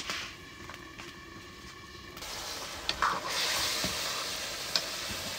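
Fish curry cooking in a wok over a wood fire: about two seconds in, a loud, even hissing sizzle starts as the lid comes off. A steel ladle stirs the curry and knocks against the wok a few times.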